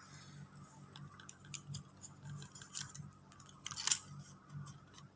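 Irregular small clicks and taps, with a sharper one about four seconds in, over a faint low hum.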